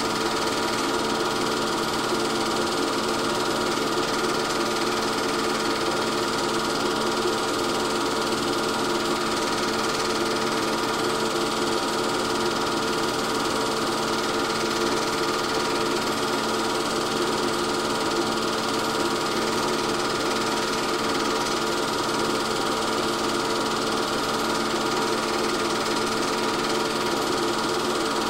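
Steady mechanical whirring hum with a few constant tones, unchanging throughout; it is not the race cars, as the 8 mm film has no sound, and it is typical of a film projector running during the transfer.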